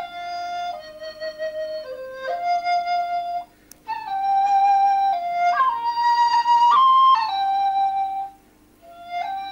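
Background music: a flute playing a slow melody of held notes, stopping briefly twice.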